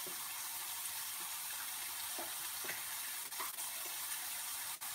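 Chopped onion, garlic and ginger sizzling steadily in hot oil in a frying pan, with a few faint ticks.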